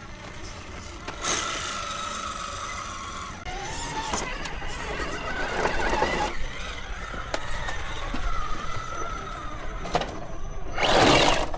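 Electric motor and gear drive of a 1/10-scale Vanquish RC rock crawler whining as it creeps over rocks, the pitch holding, then rising and wavering with the throttle. A loud rushing burst of noise near the end.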